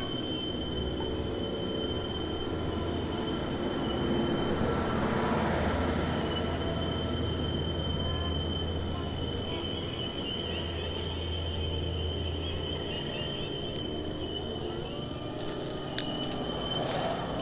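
Night insects, likely crickets, keeping up a steady high-pitched trill, with two short bursts of three or four quick chirps about four seconds in and again near the end, over a steady low rumble.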